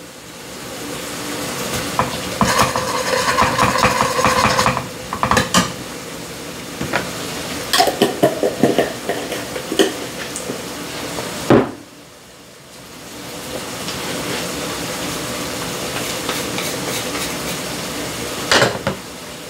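A spoon stirring and scraping through sizzling food in a cooking pot, working in a spoonful of beef bouillon paste, with frequent clinks against the pot. The sizzle drops away abruptly about twelve seconds in, then builds back to a steady level.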